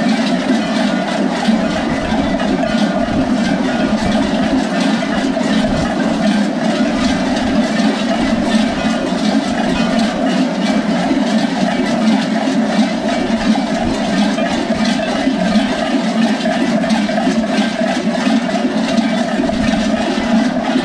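Many large goat bells of Skyros Geroi costumes clanging together in a dense, unbroken din, kept going by the wearers' movements.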